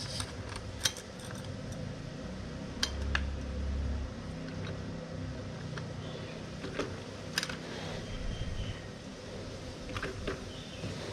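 Hand spanner working the bolts of a motorcycle luggage rack: a handful of separate sharp metallic clinks and taps, with a brief low rumble about three seconds in.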